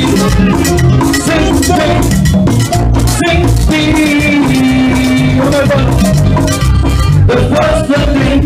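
Live Latin dance band playing at full volume: a steady beat of bass and drums with a rattling shaker on top and sustained melodic lines.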